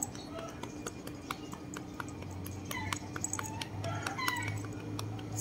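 A hand patting a cat's lower back: a string of soft, irregular slaps. Faint short high chirps come in the second half.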